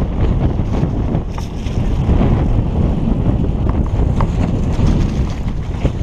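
Wind buffeting the microphone of a helmet-mounted camera on a fast mountain-bike descent, with a few clicks and rattles from the bike on rough ground.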